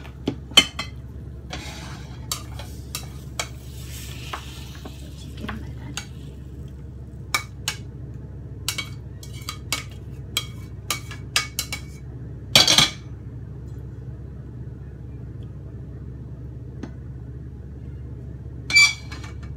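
A utensil scraping and clinking against a stainless steel frying pan as sauced fried chicken wings are moved from it onto a plate. Sharp clinks come throughout, with a louder clatter about two-thirds in and another near the end, over a steady low hum.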